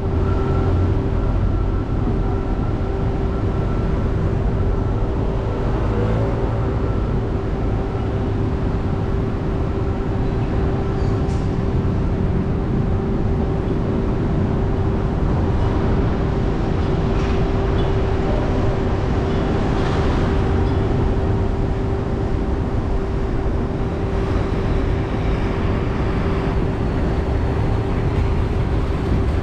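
Steady engine and tyre noise of a car driving slowly, with a constant hum over it.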